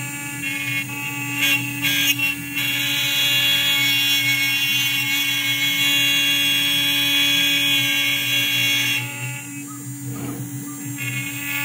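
CNC router spindle running with its bit milling a pocket into a wooden board, the gantry's stepper motors moving it over the work. A few short rasps of cutting come in the first couple of seconds, then a louder, higher whine holds for about six seconds before easing off.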